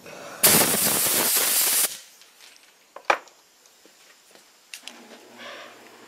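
A burst of compressed air from an air blow gun, about a second and a half long, starting and stopping suddenly, blowing out a freshly drilled hole in a cast-iron engine block. A single sharp click follows about three seconds in.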